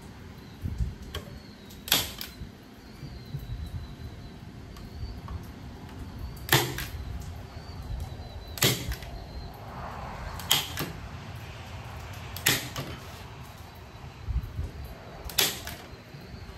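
Staple gun firing staples through wire hardware cloth into wood: about six sharp snaps, irregularly spaced two to four seconds apart, with a few fainter clicks between them.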